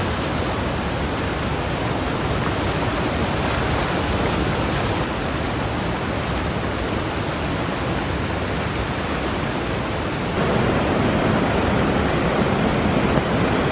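Rapids on the Tully River: a steady rush of white water pouring over and around boulders. About ten seconds in it turns louder and deeper.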